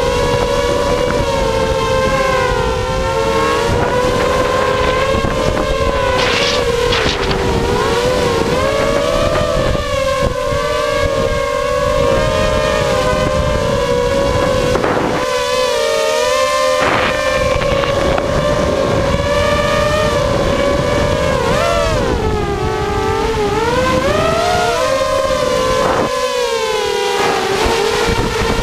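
Motors and propellers of a 250-size FPV racing quadcopter, heard from its onboard camera: a steady buzzing whine made of several close pitches that waver up and down with throttle, dipping and swooping a few times, over wind rumble on the microphone.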